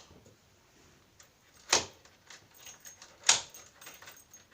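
Key turning in a newly fitted door deadlock, the bolt throwing and withdrawing: two sharp clicks about a second and a half apart, with faint ticking of the key and mechanism between.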